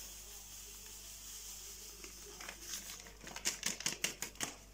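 Paper sachet crinkling and crackling as it is shaken out over a pot, a rapid run of sharp crackles in the second half, over a faint steady hiss.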